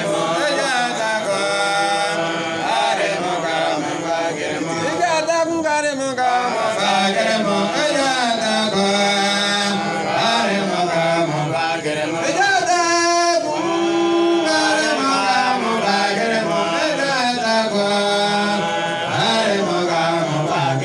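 Men chanting an Islamic devotional praise song, with long held notes, led by one voice through a microphone.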